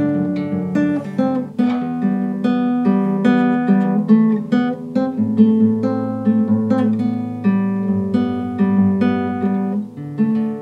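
Acoustic guitar playing a slow chord progression, the notes struck in a steady rhythm.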